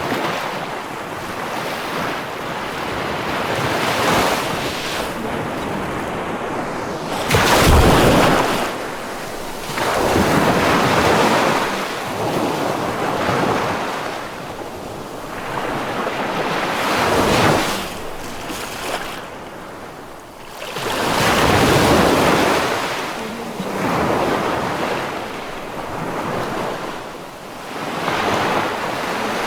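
Ocean waves breaking on a shore: the surf swells and washes back every few seconds, with the biggest crashes about eight and twenty-two seconds in.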